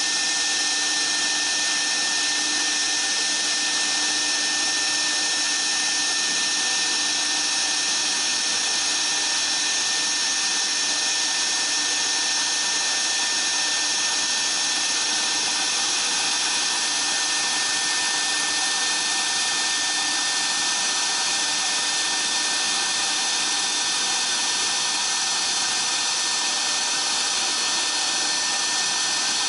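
High-speed spindle of a dual-spindle CNC router running as its bit grooves and cuts 5 mm aluminium composite panel: a steady high-pitched whine over a constant hiss, at an even level throughout.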